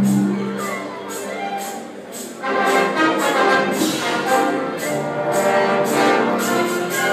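Orchestral music with prominent brass; after a softer passage it comes back louder about two and a half seconds in, with a steady beat.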